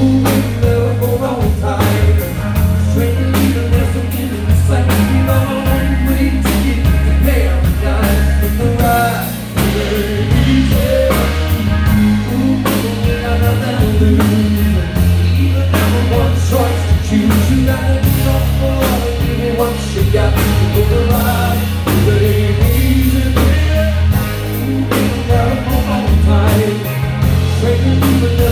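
Live rock band playing a song with singing over a steady drum beat and heavy bass.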